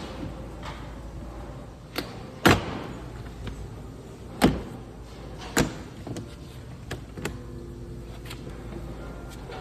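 A series of sharp knocks and clacks from hard parts being handled, about six of them, the loudest a few seconds in, over a steady low hum.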